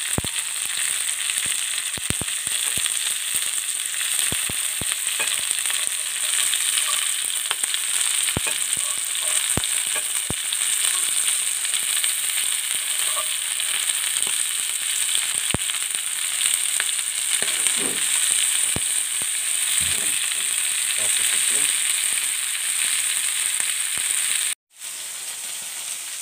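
River shrimp frying in hot oil in a metal pan: a steady loud sizzle with scattered sharp pops. Near the end it cuts out for a moment and comes back quieter.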